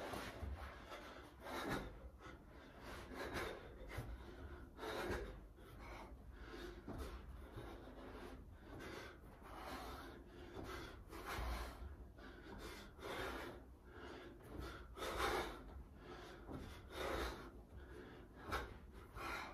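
A man breathing hard through a set of sit-ups, a short forceful exhale with each rep, about every one and a half to two seconds.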